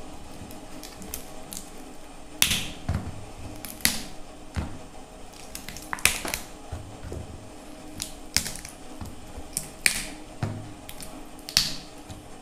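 Crisp cauliflower leaf stalks being snapped off the head by hand: sharp cracks every second or two, with faint rustling of leaves between them.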